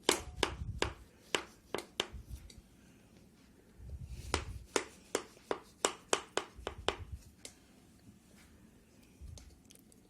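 A knife cutting freshly baked corn cake (basbousa) in its baking pan and prying a piece out: a run of irregular sharp clicks and taps of the blade against the pan, with a few dull low knocks.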